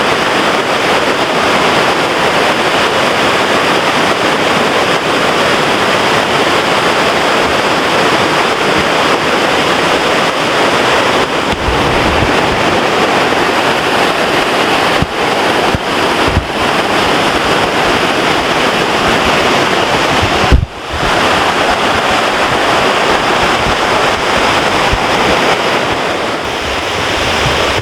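Loud, steady rush of fast-flowing water from a creek and waterfall. A few low thumps sound over it, the sharpest about two-thirds of the way through.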